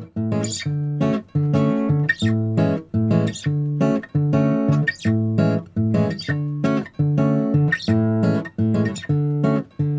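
Background music: a bossa nova tune on acoustic guitar, with plucked chords in a steady rhythm.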